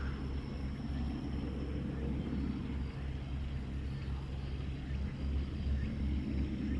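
A steady low mechanical hum, holding an even pitch.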